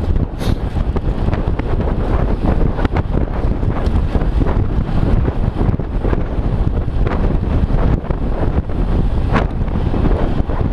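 Steady rumbling wind buffeting the microphone of a camera moving at speed, with a few faint clicks.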